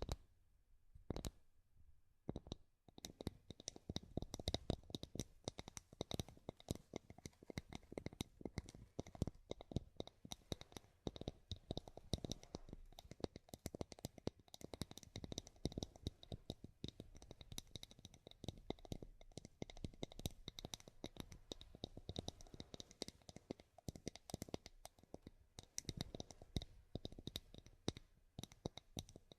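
Tapping on wood: a few separate taps at first, then a long run of quick, closely spaced taps from about three seconds in.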